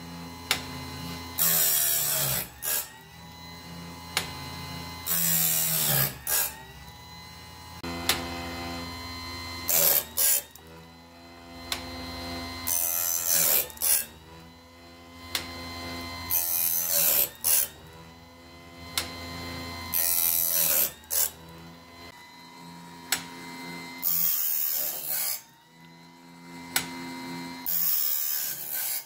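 Homemade automatic bandsaw blade sharpener running: an electric chainsaw-sharpener grinding wheel whines steadily, with a short burst of grinding hiss about every four seconds as it grinds each tooth. A sharp click comes once each cycle from the cam-driven feed arm.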